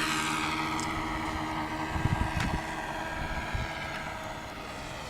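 Radio-controlled model Cessna 337 with twin ASP FS30 four-stroke glow engines flying past, the engine note sliding down in pitch and fading as it moves away. A few low thumps about two seconds in.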